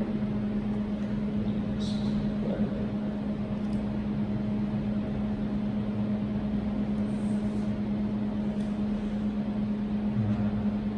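A steady low hum, with a few faint clicks as cables are handled.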